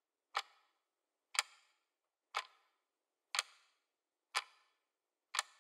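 Clock ticking sound effect: single sharp ticks about once a second, with dead silence between them.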